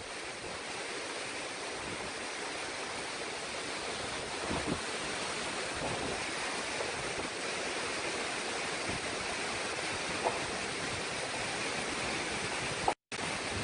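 Steady rushing noise of a cyclone's wind, rain and rough surf, with no let-up. It cuts out for a moment near the end.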